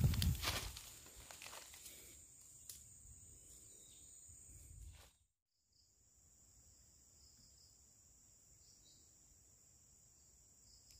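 Dry leaf litter rustling and crunching as a hand rummages through it, loudest in the first second and dying away. After a short dropout about five seconds in, insects drone steadily in a high, even tone with a few faint chirps.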